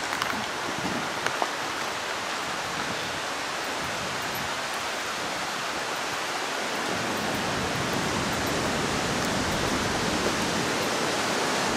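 Steady rush of a river spilling over a small weir, growing a little louder toward the end.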